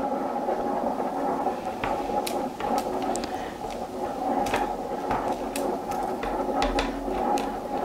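Willow rods creaking and clicking as a rod is woven over and under the ribs and around the frame of a wicker basket, in scattered sharp little clicks. A steady hum runs underneath throughout.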